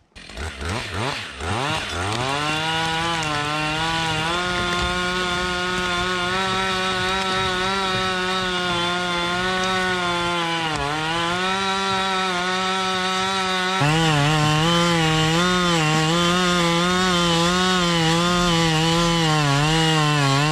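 Husqvarna 555 chainsaw, 60 cc two-stroke, revved up to full throttle and held there to drive a Lewis capstan winch pulling a log through snow. The engine note climbs over the first couple of seconds, then holds steady with a brief sag in pitch around the middle. It grows louder and wavers over the last third.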